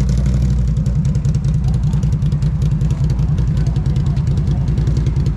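ATV engine running steadily with a low, even throb from its exhaust pulses.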